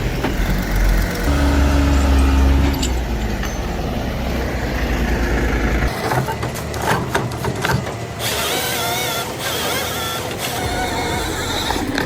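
Heavy vehicle engine running with a deep steady rumble. About six seconds in the sound changes abruptly to clanks and knocks with a wavering whine.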